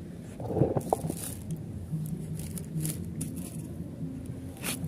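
Handling noise from the phone rubbing against a jacket: fabric rustling and scraping, with a bump about half a second in and short scratchy rasps, over a faint low hum.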